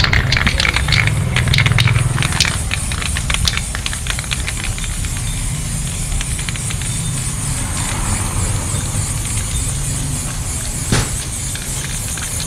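Aerosol spray-paint can hissing as paint is sprayed onto a rough rendered wall, under background music with a low bass rumble. A run of quick clicks sounds in the first few seconds.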